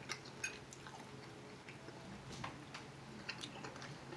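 A person chewing a mouthful of lo mein and fried rice close to the microphone, with scattered small wet clicks and a couple of sharper clicks in the first half-second.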